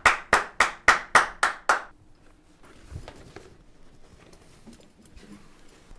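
One person clapping hands in an even rhythm, about three to four claps a second, stopping about two seconds in; then only faint rustles and small taps.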